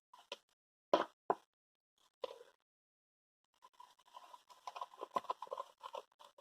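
Slime glue and paint being stirred in a small pot, making short wet, sticky pops and clicks. There are a couple of louder knocks about a second in, a brief pause, then a quick run of small pops.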